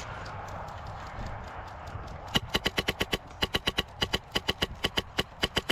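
Airsoft gun firing several rapid bursts of sharp snapping shots, about eight shots a second, starting about two seconds in.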